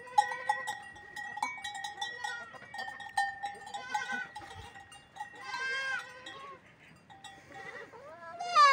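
Goats bleating a few times, the last bleat near the end loud and falling in pitch, over the steady ringing and clinking of livestock bells.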